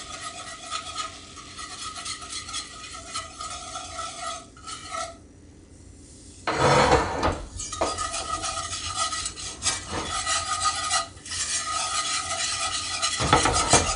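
Wire whisk scraping and clicking rapidly against a cast iron skillet as flour is whisked into sizzling melted butter for a roux. The whisking stops briefly about five seconds in. A louder clatter from the pan follows about a second and a half later, and another comes near the end.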